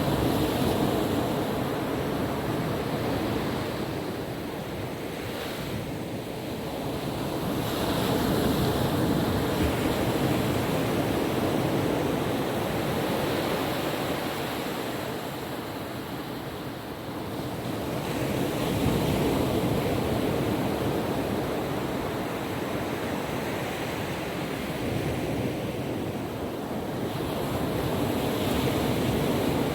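Calm ocean waves washing onto a beach, a steady surf that swells and fades slowly every several seconds, with some wind on the microphone.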